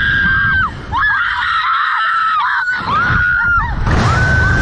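A young woman screaming on a slingshot ride: about five short, high-pitched screams, each under a second, one after another, over a low rumble.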